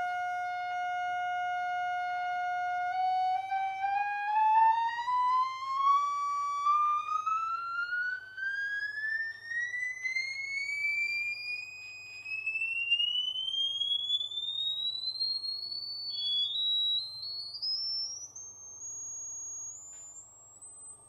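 Loudspeaker driven by a frequency generator, sounding a sine tone. It holds one steady mid pitch for about three seconds, then glides smoothly upward as the frequency is turned up, rising to a very high, thin whistle that grows fainter near the end.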